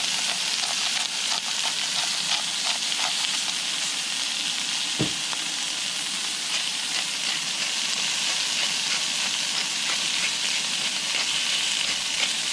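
Thinly sliced ribeye steak frying in hot oil in a pan, a steady sizzle. A few light clicks sound in the first few seconds, and a single knock comes about five seconds in.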